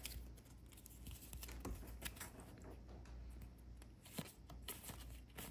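Faint rustling and a few soft clicks of a stack of basketball trading cards being handled and slid apart by hand, over a low steady hum.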